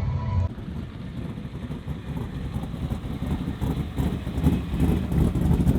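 Car engine running, getting louder toward the end.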